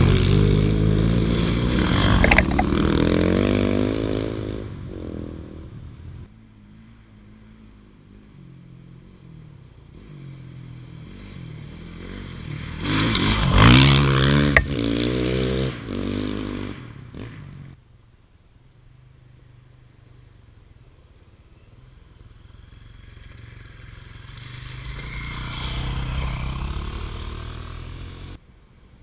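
Rally motorcycles riding past one after another at a creek crossing: an engine fades away after the start, a second bike goes by loud about halfway through with sharp clatters, and a third is heard approaching and getting louder before the sound cuts off suddenly near the end.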